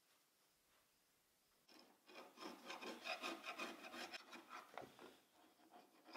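Quick hand-scraping strokes on a fiberglass hardtop shell, taking off old contact adhesive softened by paint stripper. The scraping starts about two seconds in and dies away near the end.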